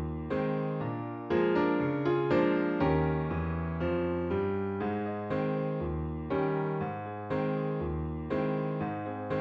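Background music: electric piano playing a gentle, regular pattern of chords over a bass line.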